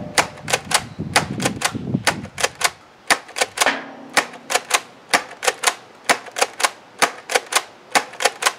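BoomCo Halo tactical shotgun, a spring-powered pump-action foam-dart blaster, fired over and over and pumped between shots: rapid sharp plastic clacks, about three a second, often in pairs. Its spring is stock and not yet upgraded to K26, which the owner says it definitely needs.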